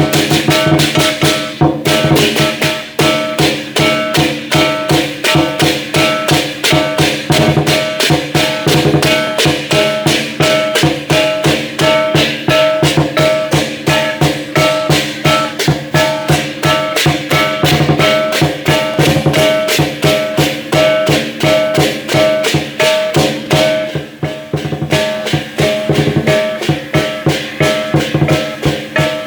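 Lion dance percussion ensemble playing: a big drum beating a fast, steady rhythm with clashing cymbals and a ringing gong.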